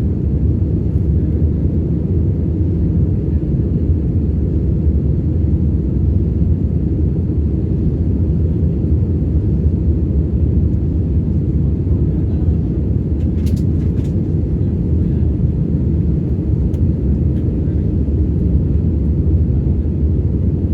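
Steady low rumble of engine and airflow noise inside an airplane cabin in flight, with a couple of faint clicks about thirteen seconds in.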